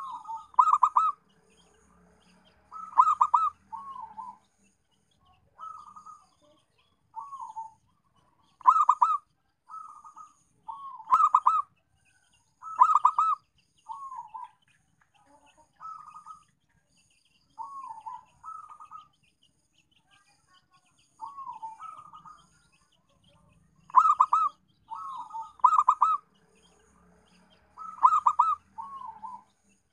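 Zebra dove cooing in a lure call: short rolling, trilled coos, some ending in a falling note, repeated in uneven phrases with pauses of a second or more between them.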